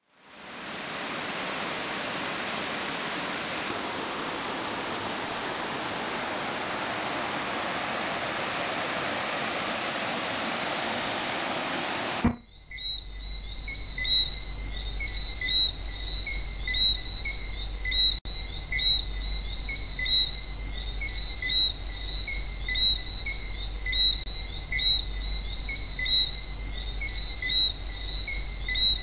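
Waterfall rushing, a steady full hiss. About twelve seconds in it cuts to a steady high insect drone with a sharper chirp repeating about every second and a quarter, over a low rumble.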